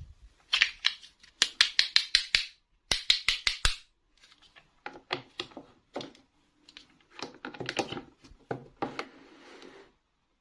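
Small plastic toy pieces and packaging being handled: runs of quick sharp clicks and crinkles, densest in the first four seconds, then scattered clicks and rustles.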